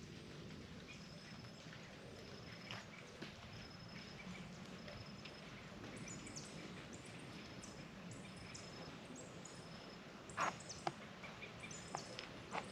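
Wild birds calling over a faint low hum: a short high note repeats about once a second, other chirps join in about halfway through, and a few louder short sounds come near the end.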